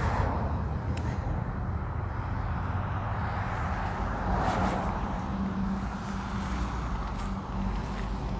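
Street traffic: vehicles passing with a steady low engine rumble, swelling as one goes by about four to five seconds in, with a steady low engine hum after that.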